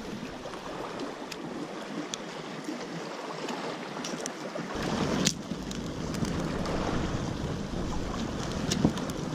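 Steady wind and lapping lake waves, with scattered sharp crackles from a small twig-and-moss fire just catching. From about five seconds in, wind also rumbles on the microphone.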